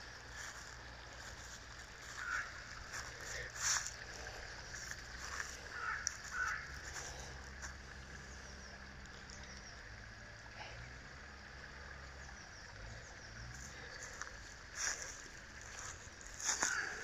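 Crunching footsteps in dry fallen leaves, a few separate steps, with a bird calling three short times in the first half.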